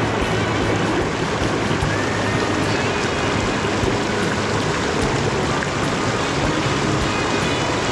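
Mountain torrent rushing steadily over rocks and a small cascade.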